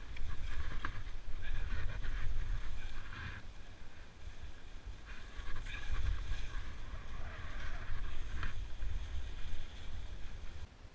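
Wind rumbling against the action camera's microphone during a fast downhill run on touring skis, with the hiss of the skis cutting through powder snow in two stretches, at the start and again in the middle. The rush stops abruptly just before the end.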